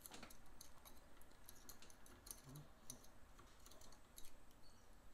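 Faint, irregular light clicks of a small hand tool picking old packed lint out from under the feed dogs of a Singer 15-91 sewing machine.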